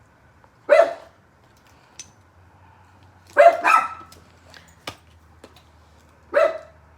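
Dog barking in short single barks: once about a second in, twice in quick succession near the middle, and once more near the end.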